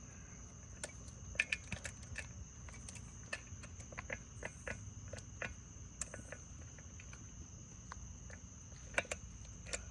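Irregular small clicks and knocks of chainsaw parts being handled while the guide bar and chain are fitted, over a steady high-pitched tone in the background.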